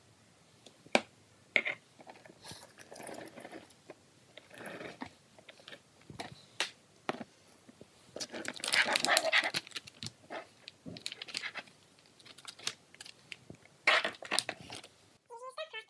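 Plastic cups and toy pieces knocked and set down on a tabletop, with the rustle of Orbeez water beads and plastic crinkling: scattered sharp clicks and a longer rustling stretch about nine seconds in.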